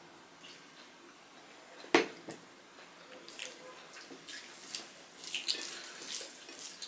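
Fingers mixing rice and curry on plates, a scatter of small wet smacks and clicks that grows busier after about three seconds. One sharp knock about two seconds in is the loudest sound.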